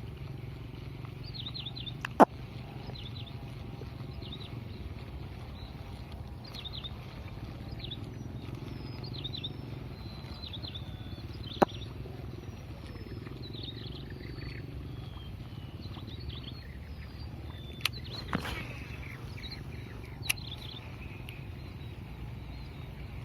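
Birds calling with many short, high chirps over a steady low hum, broken by a few sharp clicks or knocks, the loudest about two seconds in.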